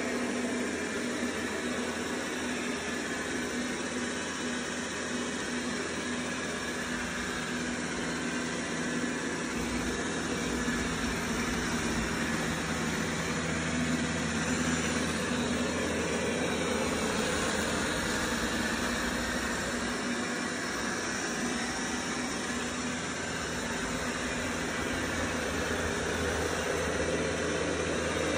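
Dreame L20 Ultra robot vacuum running over a hard floor strewn with dry crumbs: a steady whir from its suction fan with a low hum underneath.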